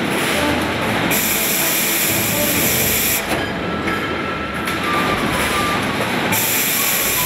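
Automotive eccentric tandem press line running with its transfer robots: a continuous dense machinery din, with two spells of loud compressed-air hiss, one about a second in lasting two seconds and another starting near the end.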